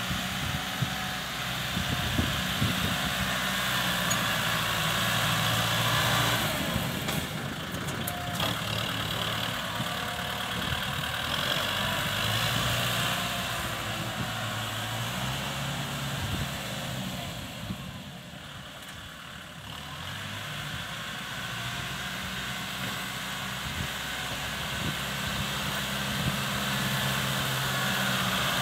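Kubota tractor's diesel engine running under load while it pushes soil with a front dozer blade. The engine note steps up and down as it works, and it eases off for a couple of seconds about two-thirds through.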